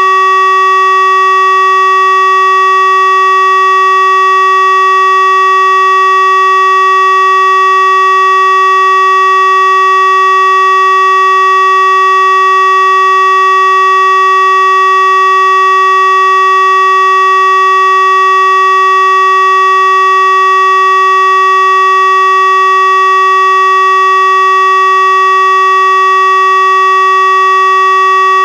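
Tesla UEAJ electronic warning siren sounding the Czech siren-test signal: one loud, steady tone that holds the same pitch without rising or falling.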